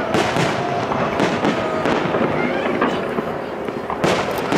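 Aerial firework shells bursting one after another with crackle between them, several sharp bangs, the loudest about four seconds in.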